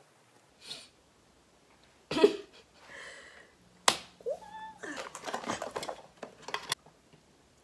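Handling noises from makeup gear: a sharp click about four seconds in, a brief rising squeak, then a quick run of small taps and rustles.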